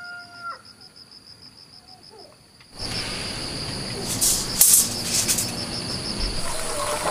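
Outdoor ambience: quiet at first, then from about three seconds in a steady high pulsing trill over a soft noise bed, with a few short, sharp, high rattling chirps around four to five seconds in.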